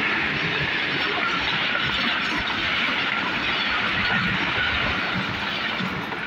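Pakistan Railways passenger coaches passing at high speed close by: a loud, steady rush of steel wheels on rails, with scattered knocks. It starts to fade near the end as the last coaches go by.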